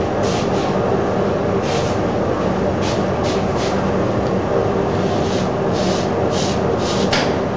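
Steady mechanical hum of kitchen machinery. Over it come short, soft hissy rubbing sounds from a cloth wiping the cardboard cake board.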